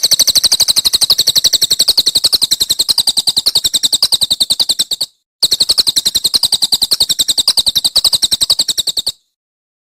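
A songbird's rapid rattling trill of sharp, high notes, about thirteen a second, in two long runs with a brief break about five seconds in, stopping about nine seconds in.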